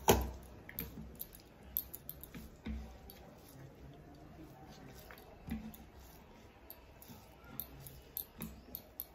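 Hand-eating sounds: scattered small clicks, smacks and squishes of fingers mixing rice with fish curry on plastic plates and of chewing, with one louder knock right at the start.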